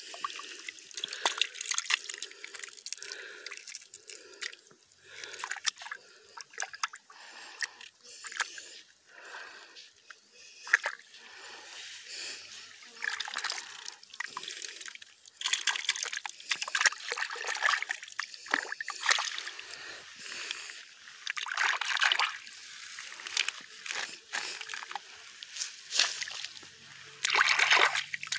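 A bare hand scooping and squeezing wet white clay in the shallow water of a spring: irregular sloshing, squelching and dripping, with a longer stretch of splashing near the end.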